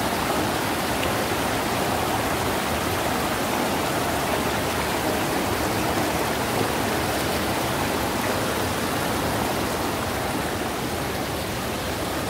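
Shallow mountain river running over boulders and through small cascades: a steady rush of water.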